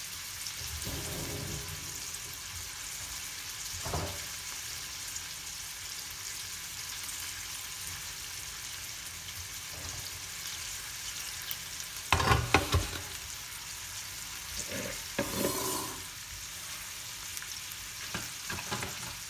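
Chicken thighs pan-searing in oil in a stainless steel frying pan, giving a steady sizzle. A brief clatter of knocks comes about two-thirds of the way through, with a few lighter knocks around it.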